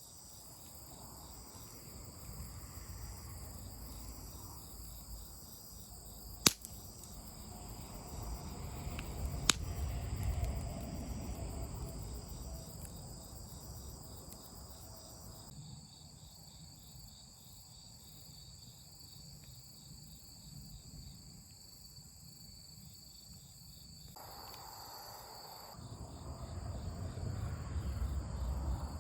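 A steady chorus of insects chirring in several even, high-pitched bands. Two sharp pops about three seconds apart, typical of burning firewood, stand out as the loudest sounds, and a low rumble swells and fades twice.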